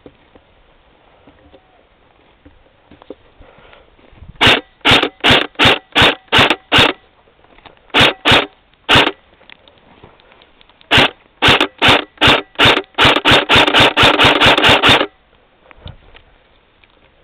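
M4-style airsoft rifle firing single semi-automatic shots: groups of quick sharp shots, ending in a fast string of about a dozen over two seconds.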